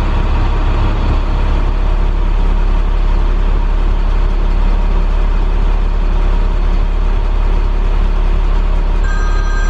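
Steady low drone of a vehicle driving, engine and road noise. A few thin steady high tones join near the end.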